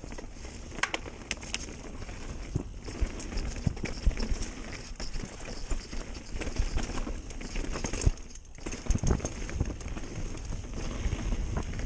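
Mountain bike descending a dirt singletrack at speed: a steady rush of tyre and wind noise, broken by frequent clattering knocks as the bike rattles over bumps, with a short lull a little after eight seconds in.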